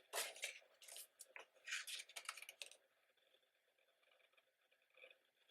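Several short crinkly rustles of paper or plastic being handled, bunched in the first three seconds, then near quiet.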